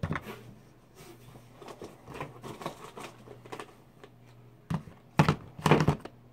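Small cardboard product boxes being handled and set down on a countertop: light rustling and clicks, then a few louder knocks close together near the end.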